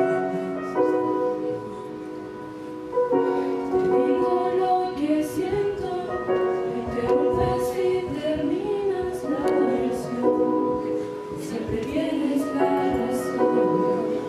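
A small group of students singing together into microphones over instrumental accompaniment of held chords. The first three seconds are the accompaniment alone, and the voices come in about three seconds in.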